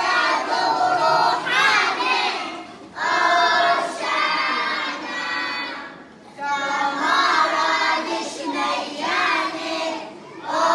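A group of young children singing together in short phrases of about three seconds, with brief breaks for breath between lines.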